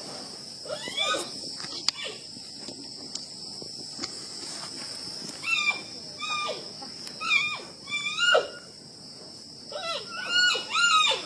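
A child's voice imitating an animal call: several groups of high squealing cries that bend up and down in pitch, separated by short pauses, over a steady high-pitched drone.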